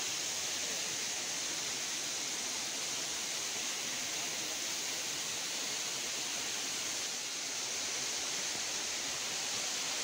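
Steady rush of water flowing over rocks in a forest stream below a waterfall, an even hiss with no breaks.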